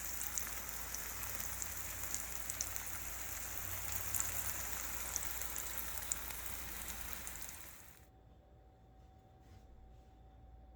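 Breadfruit and saltfish fritters deep-frying in a pot of hot oil: a steady sizzle with scattered crackles, which stops abruptly about eight seconds in.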